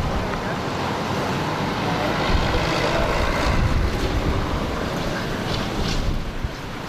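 Storm-force wind gusting, with a heavy rumble of wind buffeting the microphone.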